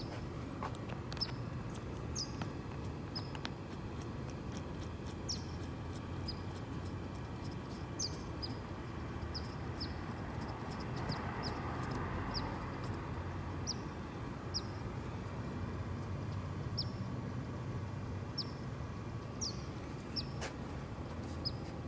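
Small birds chirping in short, scattered high calls over a steady low background rumble.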